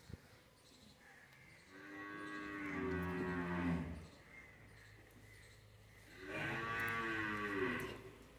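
A cow mooing twice, each a long call of about two seconds.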